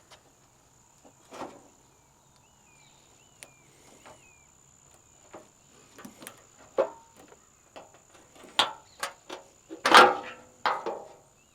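Irregular knocks, clunks and rattles of a car's front fender being worked loose and lifted off. They come sparsely at first, then thicker, with the loudest clatter about ten seconds in.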